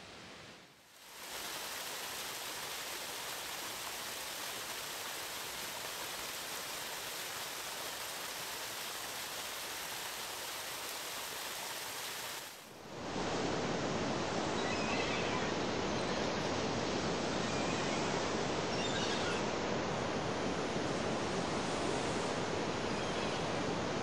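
Falling water splashing steadily. After a brief dip about halfway through, a louder stretch of moving water follows, with a few faint high chirps over it.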